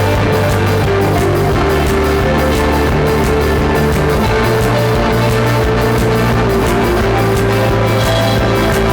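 Rock music with guitar and drum kit: an instrumental stretch of an original song.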